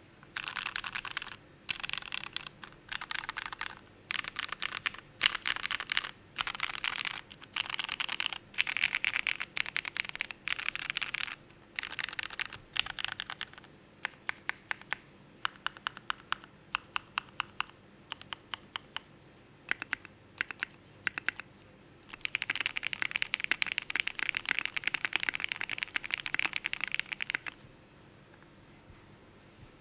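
ai03 Andromeda custom top-mount mechanical keyboard with vintage 1996 Cherry MX Black linear switches, an aluminium plate, no foam and DCS keycaps, being typed on in fast bursts of keystrokes. The middle stretch is slower, separate key presses, and a long fast burst comes near the end before the typing stops.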